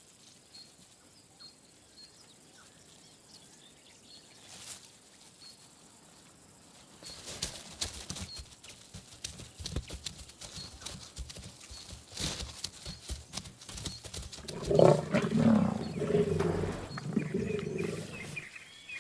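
Lions growling and snarling over a freshly killed young giraffe, loudest for about three seconds starting some fifteen seconds in. Before that, quiet with faint high chirps, then rustling and scattered cracks.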